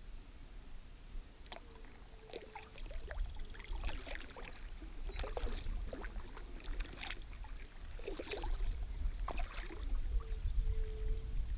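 Kayak paddle strokes in calm water: irregular splashes and drips as the blades dip and lift, closer together in the second half.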